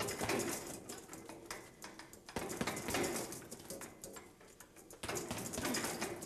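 Rapid flurries of short jabs landing on a heavy bag, thudding in quick succession. There are three bursts: one at the start, one about two and a half seconds in and one about five seconds in.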